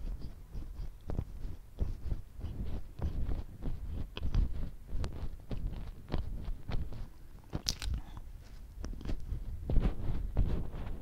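A person biting and chewing chocolate and milk donuts, with many short mouth clicks in quick succession.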